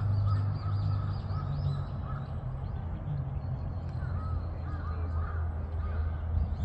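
Birds chirping and calling in quick repeated notes over a steady low rumble.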